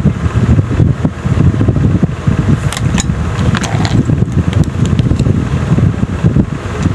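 Loud, uneven low rumble of moving air buffeting the phone's microphone, with a few faint clicks about three seconds in.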